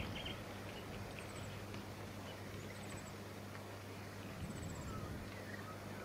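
Black-backed wren nestlings give a quick run of begging calls right at the start as they are fed at the nest. After that there are only faint, short, high chirps, three times, over a steady low hum.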